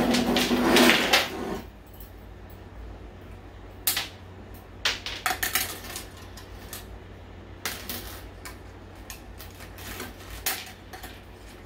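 A short spoken phrase at the start, then scattered light metallic clicks and clinks, a few at a time, as the wire clips of a steel-cable hanger are handled and snapped into the metal housing of an LED grow light.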